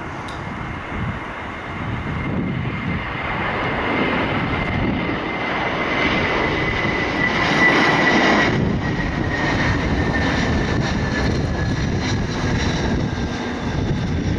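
Airbus A321 airliner's jet engines during landing, a broad roar growing louder to a peak about eight seconds in, with a high engine whine that slowly drops in pitch as the aircraft passes.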